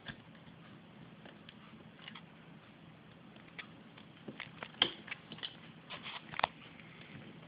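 Faint scratching and clicking of a knife blade picking and cutting at the white plastic backsheet of a solar laminate, working under the insulation over the bus bar. A few scattered scratches at first, then a quick run of sharper clicks in the second half.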